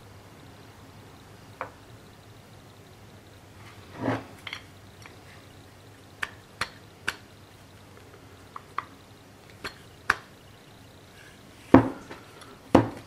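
Steel lathe scroll chuck parts knocking and clinking as they are handled and set down: scattered light clicks, a clunk about four seconds in, and two heavier knocks near the end.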